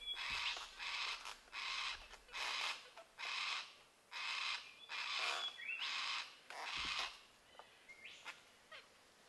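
Yellow-tailed black cockatoos tearing open rotten wood in a dead tree to get at grubs: a run of rasping, cracking bursts, roughly one every half-second to second, that stops about seven seconds in. A small bird's thin whistle sounds faintly over it.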